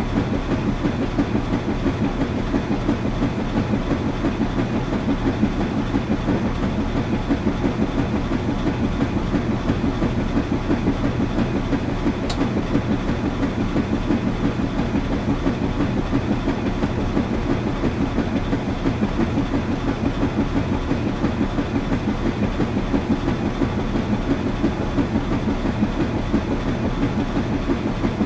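Washing machine running steadily: a continuous low hum and rumble with a fast, even pulsing.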